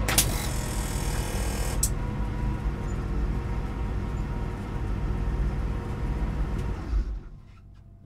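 Porsche 911 race car's flat-six engine idling in neutral, with a loud hiss for about a second and a half near the start. About seven seconds in it gives a short surge and is switched off, leaving only a faint background with a few light ticks.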